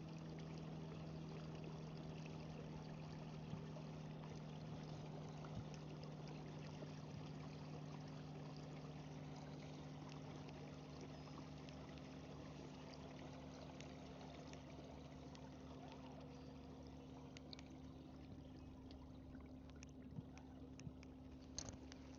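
Faint water trickling and lapping along a moving kayak, under a steady low hum. A few sharp clicks near the end.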